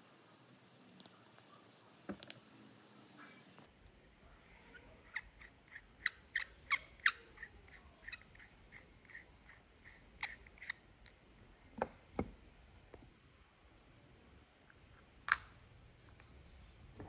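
Small parts of a telescope eyepiece clicking and tapping as they are handled and screwed together, with a run of sharp, evenly spaced clicks, about three a second, from about five to eight seconds in. Then a few scattered single clicks and a couple of knocks.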